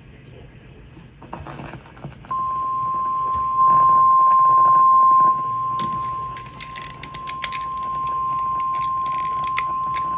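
NOAA Weather Radio 1050 Hz warning alarm tone, a single steady beep that comes on about two seconds in and holds, signalling that a severe thunderstorm warning is about to be broadcast. Clicks of radio static crackle over it in the second half.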